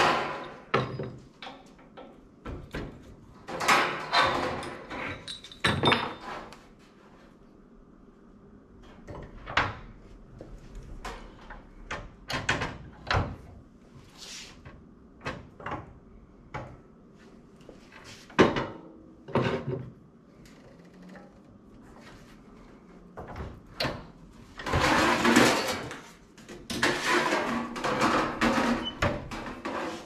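Metal clanks and knocks of a manual box-and-pan sheet-metal brake being worked by hand, as its clamping fingers are shifted and sheet metal is handled on it. There are many separate sharp knocks, and the loudest clattering stretch comes about 25 seconds in.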